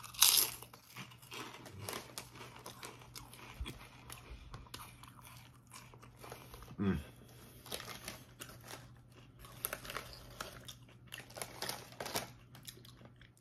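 Loud crunchy bite into a big Lay's Classic potato chip right at the start, followed by close-up chewing and crunching. A denser cluster of crisp crackles near the end includes the chip bag crinkling.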